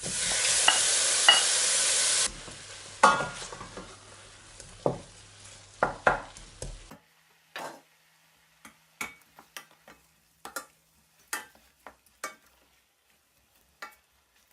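Cubed beef hitting a hot pot sizzles loudly for about two seconds, then sizzles more quietly while a utensil knocks against the pot as the meat is stirred. About seven seconds in the sizzle stops, leaving only scattered clicks of the utensil on the pot.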